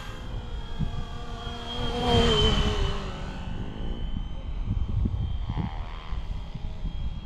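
Fly Wing Bell UH-1 Huey RC helicopter flying, with a thin steady motor whine and a rotor tone that falls in pitch about two seconds in, when it swells loudest. Gusts of wind buffet the microphone throughout with low rumbling.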